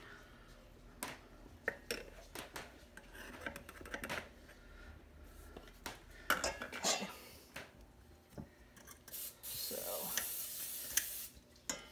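Metal measuring scoop working in a glass flour canister and a stainless steel mixing bowl: scattered clinks, taps and scrapes of metal on glass and steel, with a soft rushing hiss of flour tipped into the bowl about ten seconds in.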